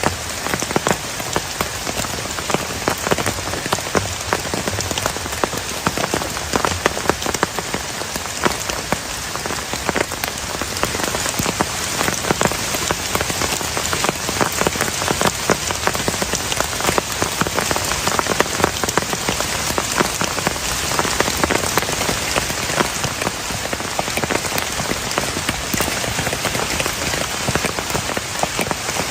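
Heavy rain falling steadily, a dense patter of individual drops striking a surface close by.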